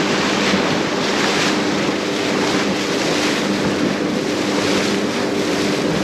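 Motor boat under way on open sea: a steady engine hum under a loud rush of wind on the microphone and water along the hull.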